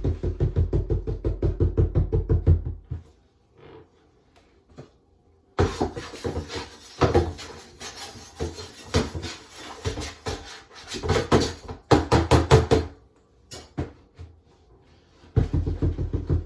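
Sifting litter box of wood-pellet cat litter being shaken and emptied: a fast, even rattle, a pause, then irregular scraping and clattering as the sawdust is tipped out, then the fast rattle again near the end.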